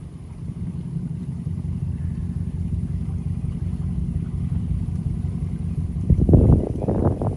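Boat motor running steadily with a low drone, joined about six seconds in by a louder rush of rough noise.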